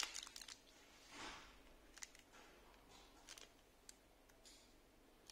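Near silence with faint rustling and crinkling of a clear plastic bag being handled: one soft rustle about a second in, then a few light crinkles and ticks.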